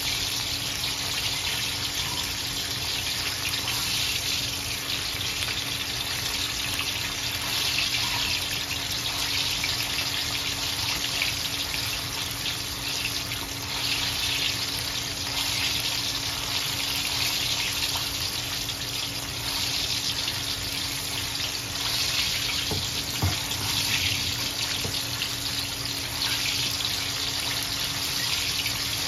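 Chicken wings deep-frying in hot oil in a wok: a steady sizzle, with a faint low hum underneath.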